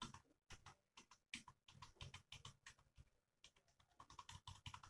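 Keys of an Enter budget USB computer keyboard being pressed, giving faint, irregular clicks that come quicker near the end.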